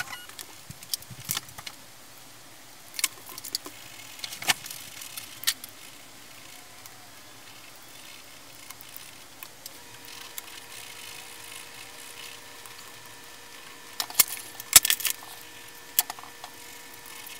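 A ballpoint pen drawing on paper over a wooden table: scattered light clicks and taps, with a cluster of sharper ones near the end, over a steady hiss. A faint steady hum comes in about two thirds of the way through.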